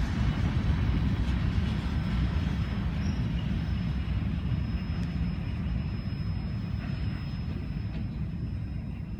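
Freight train cars rolling past and moving away: a steady low rumble from the wheels on the rails that slowly fades as the end of the train recedes.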